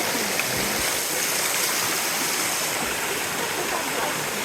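Steady rush of flowing water at the waterfalls.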